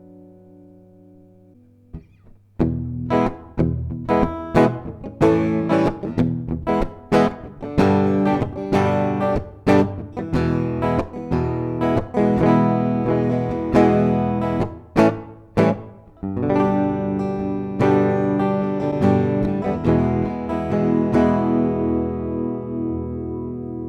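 Clean guitar played through a DigiTech Polara reverb pedal. A reverb tail fades out, then from about two and a half seconds in comes a run of picked notes. After a short break around sixteen seconds, chords are left ringing and slowly die away in the reverb.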